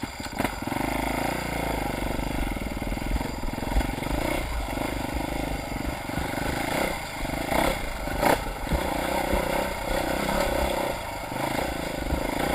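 Dirt bike engine running steadily over rough ground, with a few short knocks along the way.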